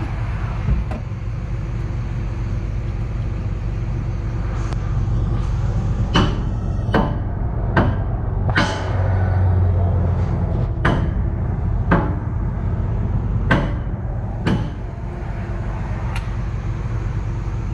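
John Deere excavator's diesel engine idling steadily, with about ten sharp metal clanks at irregular intervals: hammer blows on the big pin being fitted to mount the excavator's thumb.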